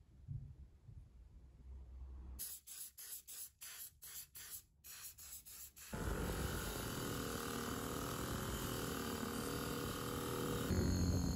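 Bench grinder running with a wire wheel brushing rust off a metal part of an old hand drill, a loud, steady grinding hiss over the motor's hum that gets louder near the end. Before it, about two seconds in, comes a hissing noise broken into many short bursts.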